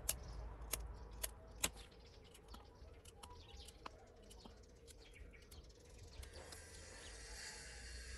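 Knife blade cutting against a wooden chopping board, a series of sharp clicks, loudest and quickest in the first two seconds, then fainter and more spaced out.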